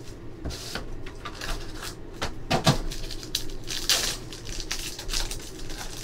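Plastic and shiny foil wrappers crinkling and tearing as a pack of trading cards is ripped open by hand, in a run of sharp, irregular rustles that are loudest about two and a half and four seconds in.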